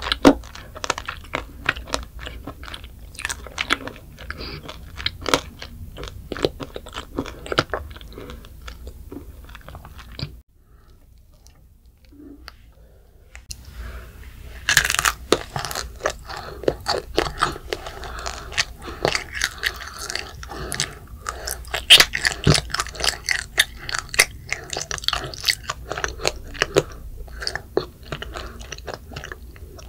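A child biting and chewing candied macarons coated in hard sugar glass (macaron tanghulu): many quick, sharp crunches as the candy shell cracks between the teeth. A near-silent gap of about three seconds comes about a third of the way through, then the crunching returns louder and denser.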